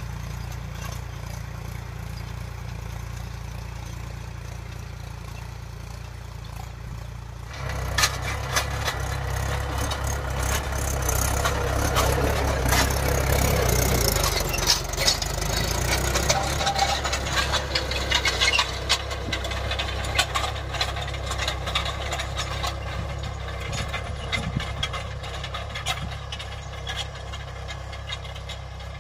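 Mahindra tractor diesel engine running under load as it pulls a cultivator, a steady low hum at first. About eight seconds in it becomes much louder and closer as a Mahindra 415 DI works past, with rattling and clatter, then fades slowly as the tractor moves away.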